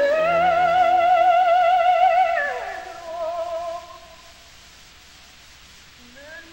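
Operatic soprano voice singing a loud high note with wide vibrato, then sliding down about an octave some two and a half seconds in. A softer, higher note follows briefly, and the sound then drops to a low hush, with a new phrase beginning to rise near the end.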